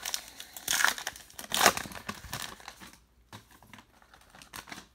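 A baseball card pack's wrapper crinkling and being torn open, loudest in the first two seconds, followed by fainter rustling and light clicks as the contents are handled.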